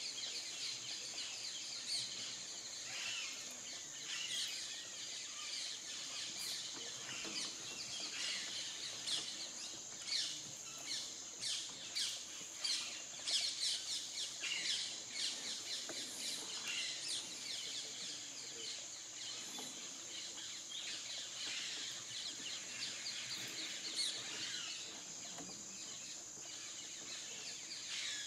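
Many small birds chirping and calling in woodland, busiest around the middle, over a steady high-pitched drone.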